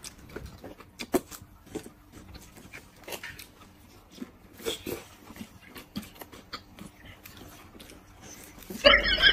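Quiet eating sounds: slurping noodle soup from a bowl and chewing, with scattered small clicks of chopsticks. Near the end a much louder, rapidly pulsing sound suddenly starts.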